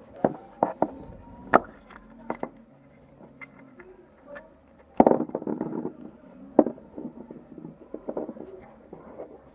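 Hard plastic toy parts handled on a table: a yellow Kinder Surprise capsule pulled apart and a small plastic figure set down, giving a run of sharp clicks and taps, the loudest about five seconds in.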